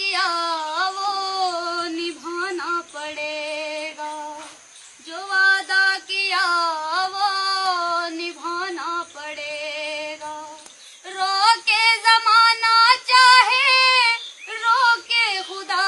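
A woman singing alone without accompaniment, in long held phrases with vibrato and short breaths between them.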